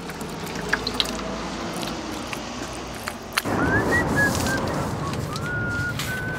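A man whistling a wandering tune from about halfway in, over the wet swishing of a paste brush scrubbed across a paper billboard poster. A few light knocks come before it.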